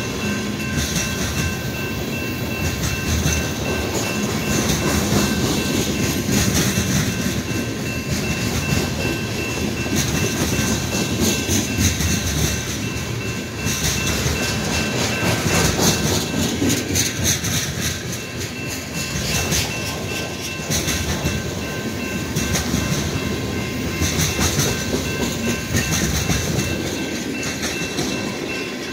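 BNSF covered hopper cars of a grain train rolling past at a level crossing: a steady rumble with the wheels clattering over rail joints, the clacks bunching thicker about halfway through.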